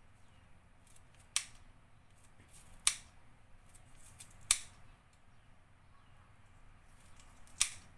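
Kitchen scissors snipping through raw carrot: four sharp, separate snips at uneven gaps.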